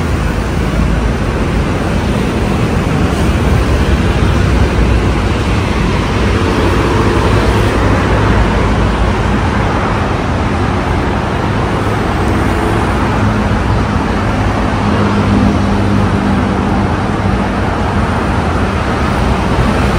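Steady road traffic noise from a busy multi-lane city road, with cars and motorbikes passing.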